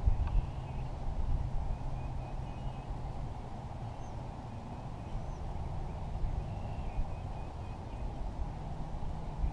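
Wind rumbling on the microphone, with faint bird calls over it: a few short high chirps and twitters now and then.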